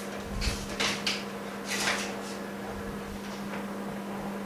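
A few short clicks and rustles of small parts being handled, bunched between about half a second and two seconds in, over a steady low electrical hum.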